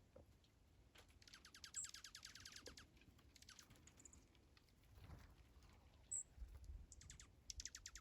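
A flock of small birds, dark-eyed juncos and white-crowned sparrows, pecking at scattered grain: faint quick runs of ticks, with a few short high chip notes.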